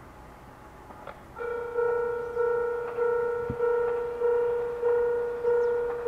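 Japanese railway level-crossing alarm starting about one and a half seconds in. It rings a repeated electronic bell tone a little under twice a second, each strike fading away: the warning that a train is approaching.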